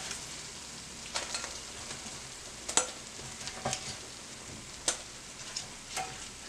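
Silicone-tipped metal tongs clicking and knocking against the NuWave oven's wire rack as cooked chicken wings are lifted off, a sharp click about once a second. Underneath is a steady sizzle from the hot wings and grease.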